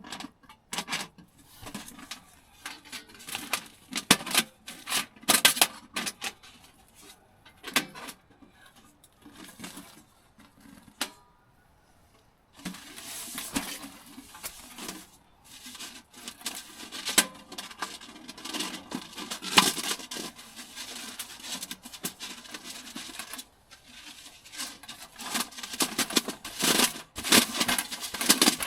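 Irregular small clicks, clinks and knocks of handling, with a stretch of steady hiss through the middle.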